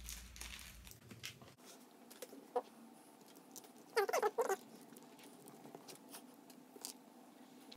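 Plastic battery caps and a cap strip being handled and pressed on a motorcycle battery. There are light clicks and knocks, a short plastic squeak about two and a half seconds in, and a louder run of squeaks around four seconds in.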